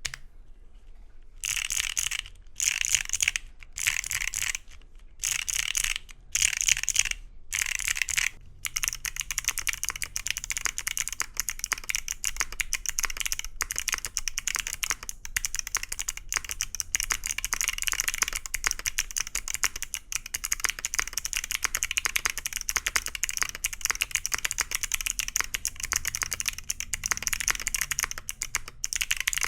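Mechanical keyboard with Wuque Studio BigLucky clicky switches being typed on, each keystroke giving a sharp click. At first it comes in about six short bursts with brief pauses, on a polypropylene plate. From about nine seconds in it turns to continuous fast typing, on an aluminum plate.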